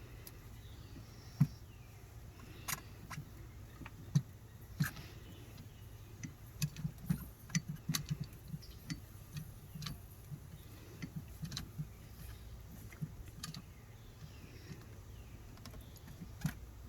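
Hand hydraulic lug crimper and heavy copper cable being handled: scattered sharp clicks and light knocks of metal, with a quicker run of taps about seven to nine seconds in.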